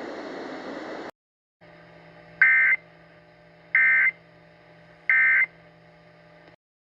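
Emergency Alert System End-of-Message signal: three short, shrill bursts of digital data tones about 1.3 s apart over a faint hum, marking the end of the alert. A second of hiss cuts off before it.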